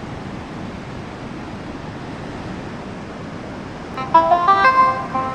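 Steady rushing noise like wind, the opening of an ambient electronic track. About four seconds in, a melody of short, bright synth notes comes in over it.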